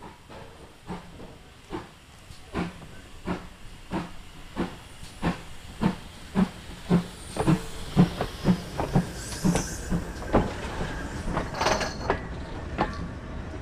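GWR Manor class two-cylinder 4-6-0 steam locomotive working under steam past the listener. Its chimney exhaust beats grow louder and quicker as it approaches, with bursts of steam hissing as it goes by.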